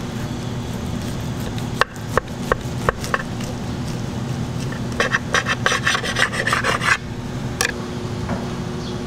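A knife cutting through a cheeseburger's toasted bun and patty. A few sharp taps come first, then about two seconds of rasping sawing strokes, over a steady low hum.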